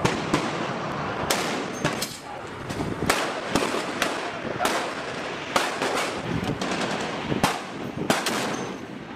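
Barrett .50-calibre semi-automatic sniper rifles firing: about a dozen sharp shots at uneven intervals, some coming in quick pairs, each with a short echo.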